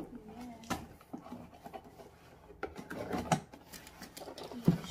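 A long cardboard shipping box being opened by hand: a cutter working at the packing tape, then the flaps scraping and rustling, with a few sharp knocks of cardboard.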